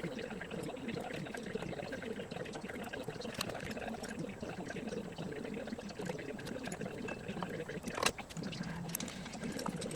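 Oil pouring and trickling out of a Grasshopper 721D mower's transmission drain, a steady splashing run of liquid, with a brief sharp noise about eight seconds in.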